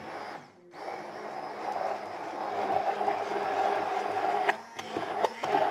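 Electric blender motor running steadily as it emulsifies homemade mayonnaise, with oil being added to thicken it. The motor cuts out briefly about half a second in and again shortly before the end, then runs on.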